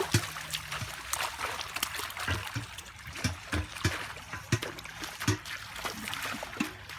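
Stream water splashing and trickling, with irregular low plopping plunks about once or twice a second.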